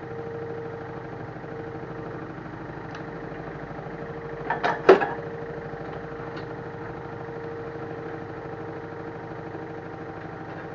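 LG F1089ND washing machine running through its rinse-and-spin cycle: a steady motor hum with a fine even rhythm from the turning drum. About halfway there are a few sharp knocks close together.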